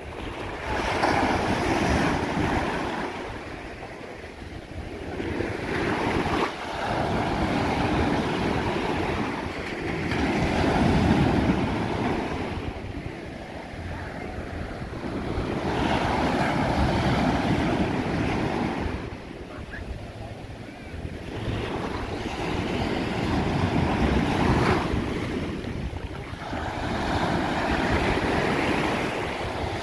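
Ocean surf breaking and washing up onto a sandy beach, swelling and easing every few seconds. Wind buffets the microphone with a low rumble.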